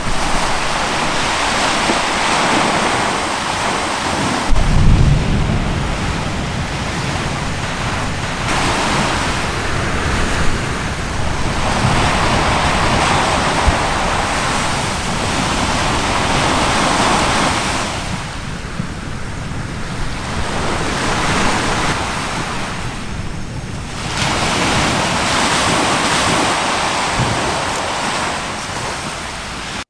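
Sea surf washing in surges every few seconds, with wind buffeting the microphone. There is a single deep thud about five seconds in.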